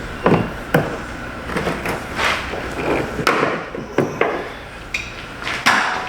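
Plastic interior trim being pried and handled: a run of irregular knocks, taps and clatter, with sharper strikes just after the start and again near the end.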